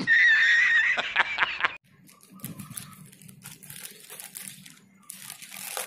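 A loud, high wavering tone with clicks that stops abruptly after nearly two seconds. Then scissors cutting through a thin plastic courier mailer, the plastic crinkling.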